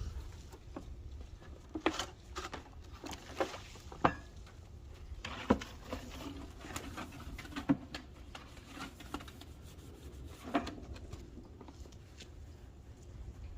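Buckets being handled and scrubbed out: irregular knocks and clatters, some with a short low ring, over a steady low rumble.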